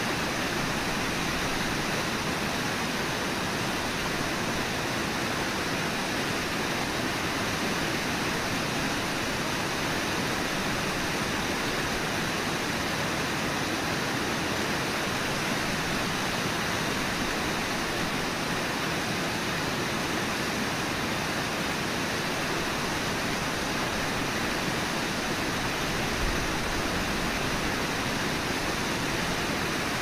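Brooks River water rushing steadily, an even, unbroken roar.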